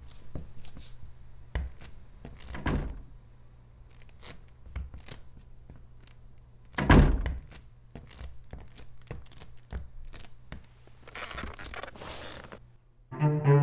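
Scattered light knocks and creaks, then a heavy wooden door thunk about seven seconds in, the loudest sound. A short rustle follows near the end, and a cello starts playing just before the end.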